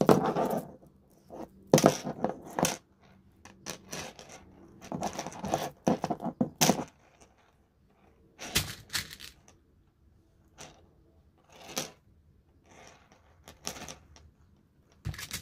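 Plastic beads clicking and rattling against each other and the tabletop as they are handled and threaded onto string. The sound comes in short, irregular bursts with quiet gaps between them.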